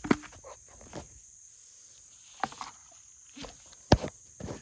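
A steady high chirring of crickets, broken by several short knocks and clunks of handling, the loudest about four seconds in.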